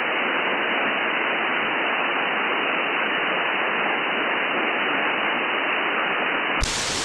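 Steady hiss from an RTL-SDR receiver's audio, demodulating a CB channel in lower-sideband mode with no voice on it. About six and a half seconds in it jumps to a brighter, wider hiss as the receiver is switched to AM.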